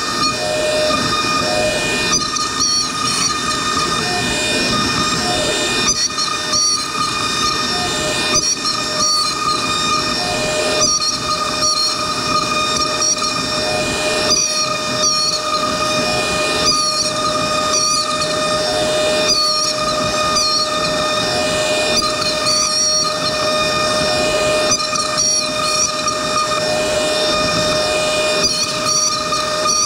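Avid CNC router spindle whining at a steady high pitch while a Whiteside 1502 90-degree V-bit V-carves lettering into pine, with the hiss of the cut under it. The sound drops briefly every second or two.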